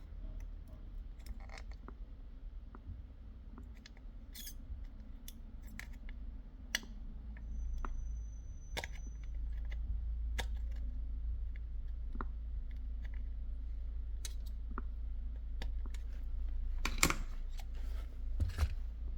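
Scattered small clicks and taps of hand tools and electronic parts being handled on a workbench, over a low steady hum, with a denser cluster of clicks near the end.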